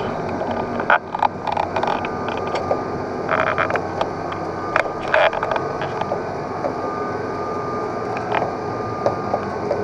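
Open lift basket moving through a rock shaft on its cable: steady mechanical running with scattered metallic clicks and creaks, several of them bunched about three to five seconds in.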